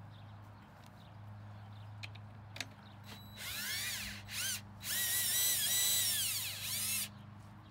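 DeWalt cordless drill/driver spinning in three runs, each rising in pitch as it speeds up and falling as it slows: a short run, a brief blip, then a longer run of about two seconds, backing nuts off bolts.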